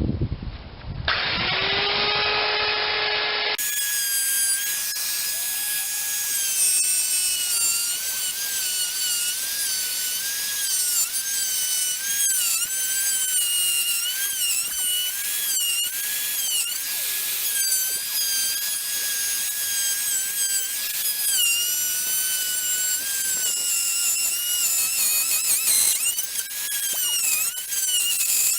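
Electric router spinning up about a second in, then running at a high whine that repeatedly dips in pitch and recovers as the bit cuts a recess into the oak door.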